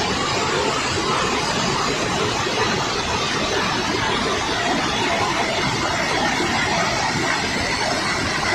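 Steady roar of rushing water from the Hogenakkal waterfall on the Kaveri river, an even, unbroken noise.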